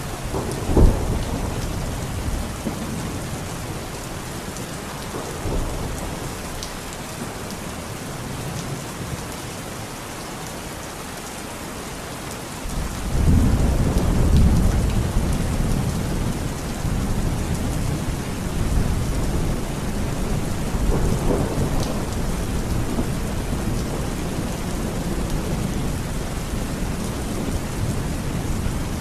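Steady rain falling, with thunder: a sharp clap about a second in and a long low rumble that swells from about halfway, with fainter rumbles between.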